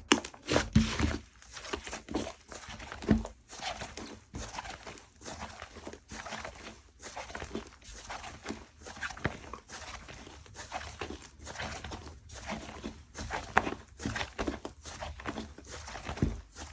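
Slime being squished, stretched and pressed by hand, making a dense, irregular stream of sticky clicks and small popping air bubbles.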